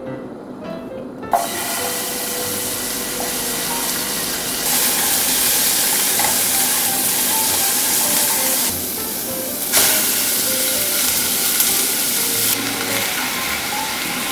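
Sliced vegetables sizzling in hot sesame oil in a saucepan. The sizzle starts suddenly about a second in as they hit the oil, dips briefly about two-thirds of the way through, then picks up again with a knock. Soft background music underneath.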